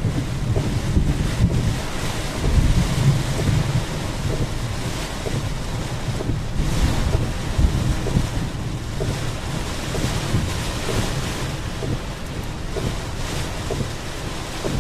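Storm wind gusting hard across the microphone in a thunderstorm rain squall, a low buffeting rumble under a rushing hiss that swells and eases.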